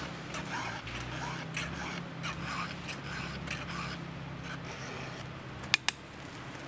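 Round file scraping across the cutters of a 3/8-pitch full-chisel chainsaw chain in short repeated strokes, sharpening the chain by hand. Near the end come two sharp clicks in quick succession, the loudest sounds here.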